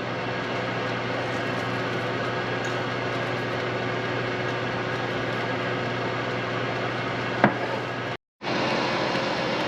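Steady mechanical hum of a running appliance motor or fan, with one sharp click about seven and a half seconds in.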